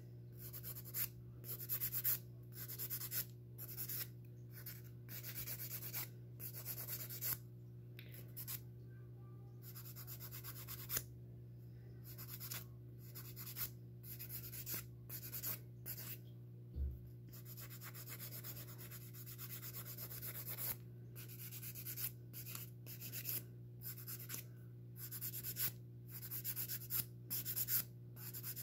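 Hand nail file rasping across fingernails in quick, irregular back-and-forth strokes, with a couple of short pauses.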